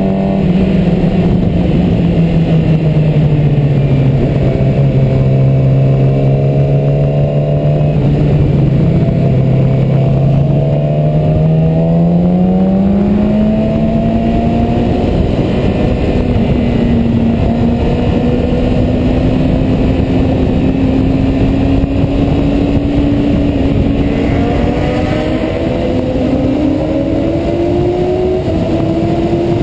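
Onboard sound of a Yamaha R6 sportbike's inline-four engine under way, with wind rushing past. The engine note sinks gently over the first several seconds as the bike eases off, climbs about a third of the way in, then keeps slowly rising as the bike gathers speed.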